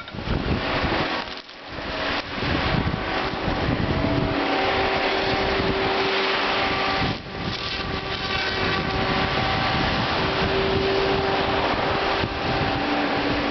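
Timbco tracked feller buncher at work: its diesel engine runs hard under a dense mechanical din, with a steady whine that shifts slightly in pitch. The noise dips briefly about a second and a half in and again around seven seconds.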